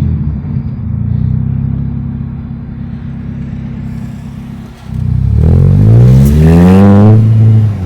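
Chevrolet Astra's four-cylinder engine running straight-piped with no muffler: it drones steadily at light throttle, dips briefly about five seconds in, then the revs climb as the car accelerates hard, falling away just before the end.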